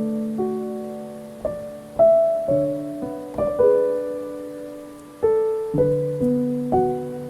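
Slow, gentle piano music: single notes and soft chords struck every half second to a second, each ringing and fading.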